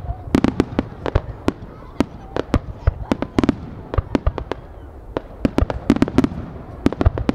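Fireworks display: a rapid, irregular run of bangs from aerial shells launching and bursting, several a second, each with a rolling echo.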